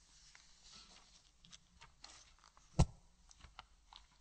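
Quiet room tone with faint scattered rustles and clicks, and one sharp knock nearly three seconds in.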